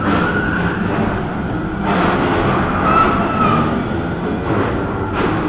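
Bumper cars driving around the rink: a steady rumble of the cars running over the floor, with a few sharp knocks as they hit.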